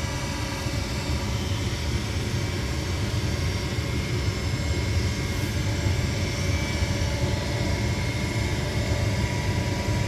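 Gas furnace draft inducer motor running steadily: an even hum with a low rumble and a few faint steady tones above it.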